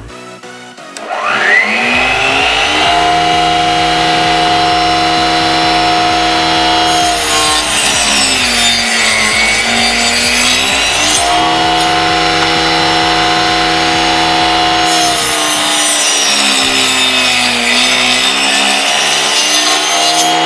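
Homemade table saw's 775 DC motor spinning up and driving a 4-inch alloy circular saw blade through a timing belt, a steady whine that sags in pitch twice as wood is fed into the blade under load. It cuts off suddenly near the end. Electronic music plays underneath.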